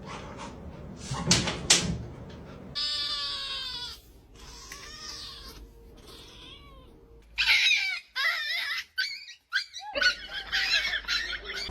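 High, wavering animal cries, most like a dog whining and yelping, in several short bouts.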